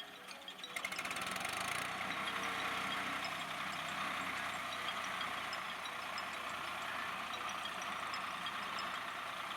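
Tractor diesel engine running steadily. It comes up about a second in after a brief quieter moment.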